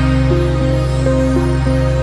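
Background music, new-age and electronic in style: a steady low drone under a melody of short notes that change about three times a second.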